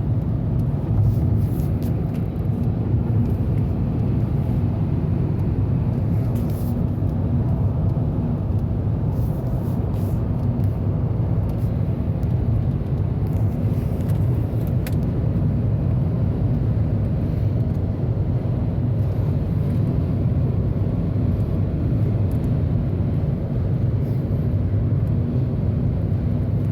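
Steady low road and engine noise inside a moving car's cabin, a constant rumble with no change in pace.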